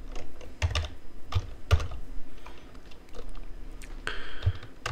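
Typing on a computer keyboard: scattered, irregular keystrokes a fraction of a second apart.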